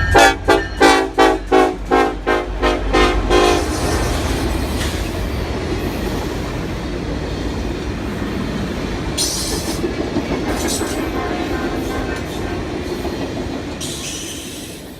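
About eight short, sharply cut horn blasts in quick succession over the first few seconds, then a steady rumble that fades near the end.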